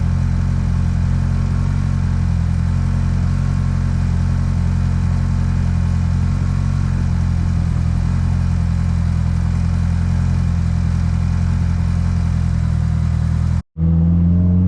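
Mitsubishi Lancer Evolution VIII's turbocharged four-cylinder engine running at a steady cruise as a constant low drone, with no revving. The sound cuts out abruptly for a moment about a second before the end.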